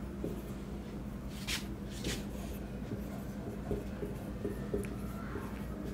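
Marker pen writing on a whiteboard: a run of short scratchy strokes, two sharper ones about one and a half and two seconds in.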